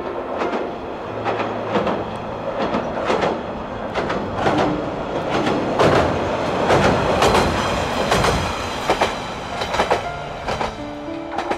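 Diesel railcar running past, its wheels clattering over rail joints in a long irregular run of sharp clacks over a steady rumble of rail noise. The clacks are loudest through the middle.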